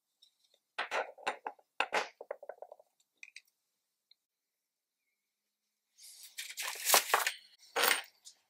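Desk handling sounds: light clicks and taps as a fountain pen and a card are set down on a wooden desktop, then a couple of seconds of rustling and scraping near the end.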